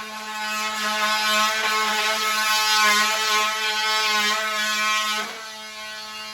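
Handheld power tool running into a wall with a steady buzzing whine; it eases to a lower level about five seconds in.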